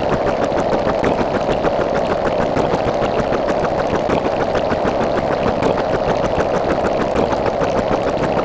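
A small engine-like motor running steadily with a fast, even mechanical rattle.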